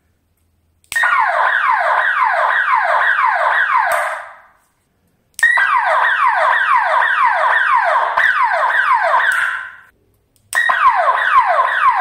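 Horn speaker of a homemade fire-alarm circuit sounding a siren of fast falling sweeps, about three a second. It sounds in three bursts that start abruptly about a second in, at about five and a half seconds and near the end, each fading out over half a second when it stops. The alarm is set off by a lighter flame held near the circuit.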